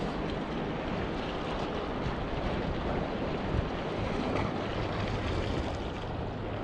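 Strong wind buffeting the microphone as a steady low rumble, over the even wash of sea waves.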